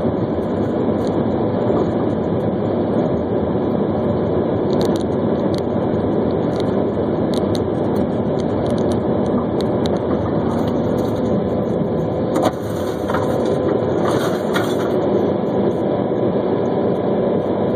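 Steady road and engine noise of a moving vehicle, picked up by a dashcam inside it. About twelve and a half seconds in comes a short bang from a nearby collision, followed by a couple of seconds of scattered clicks and rattles.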